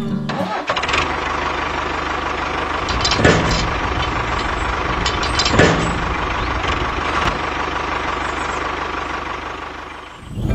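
Tractor engine running steadily, with two louder knocks about three and five and a half seconds in, fading out near the end.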